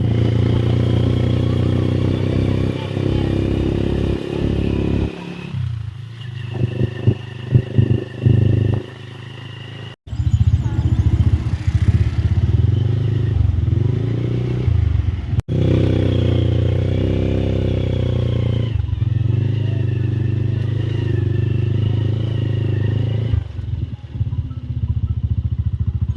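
A motor vehicle running steadily with a loud, continuous drone. It breaks off abruptly twice, about ten seconds in and again about fifteen seconds in.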